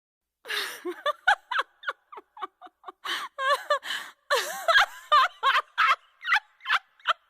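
High-pitched giggling laughter sound effect: a breathy start followed by a run of short, quick bursts that wobble up and down in pitch.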